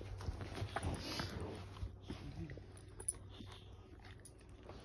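A Rottweiler chewing and tearing at a plush stuffed toy, with mouth sounds and sniffing. The chewing is busiest in the first two seconds, then thins to scattered small clicks.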